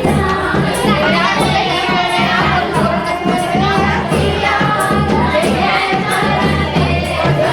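A Hindi folk song sung to a steady percussion beat.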